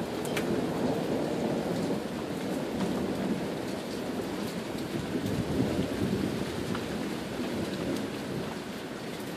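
Thunder rumbling and slowly fading away over steady rain, with a few sharp ticks of raindrops striking close by.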